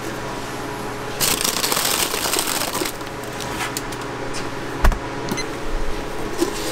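A metal tray on a wire rack is slid onto a refrigerator's wire shelf: a rustling scrape a little over a second in and a single sharp knock near five seconds, over a steady hum.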